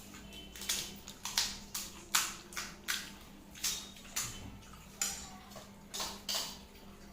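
Crisp fried fuchka (pani puri) shells crunching in the mouth while chewing: a run of short crackling crunches, about two a second.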